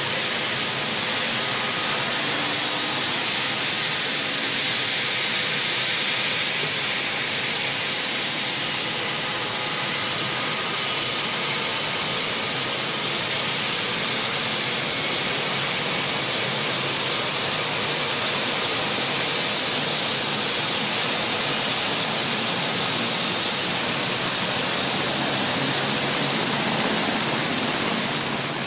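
Turbine engines of a Sikorsky VH-60N Marine One helicopter running on the ground with the main rotor turning: a steady rushing noise with several high whines over it.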